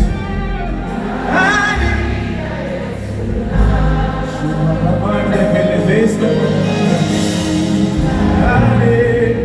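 Gospel worship music: voices singing over a steady instrumental backing.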